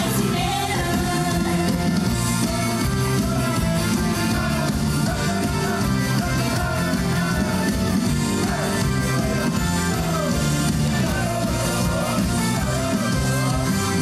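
Live pop song: a sung melody over a full band-style backing with a steady bass line.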